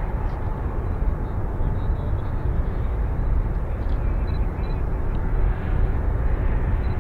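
Airbus A321-231 airliner arriving, its IAE V2500 turbofan engines a steady, even roar.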